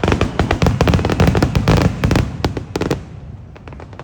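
Fireworks going off in a fast, dense barrage of bangs and crackles, thinning out to a few scattered cracks after about three seconds.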